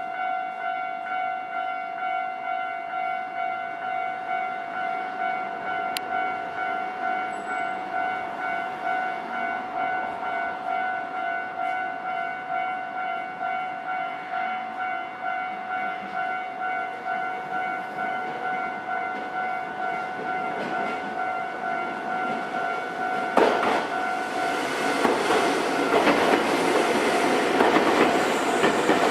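Nankai Electric Railway level-crossing warning bell ringing in a steady, rapid ding-ding rhythm. Near the end a Nankai train runs over the crossing, its wheels and cars clattering louder than the bell.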